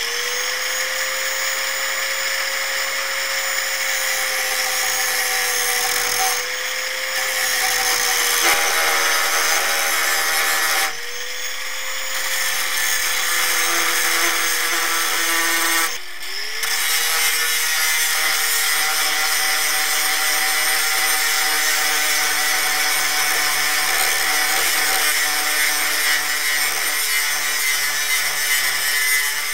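Angle grinder grinding the teeth off a steel saw blade: a steady high motor whine over a harsh grinding hiss. The noise dips briefly about three times, and once the whine sags and recovers.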